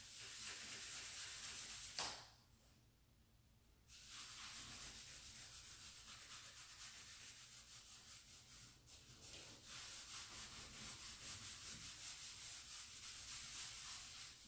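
A cloth rag rubbing black furniture wax into the painted surface of a nightstand, a faint scrubbing of quick back-and-forth strokes. It stops after a sharp tap about two seconds in and starts again about two seconds later.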